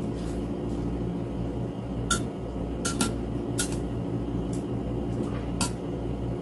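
Several light clicks and clinks of kitchen utensils and ingredients being handled in a cooking pot, about six spread over a few seconds, over a steady low mechanical hum.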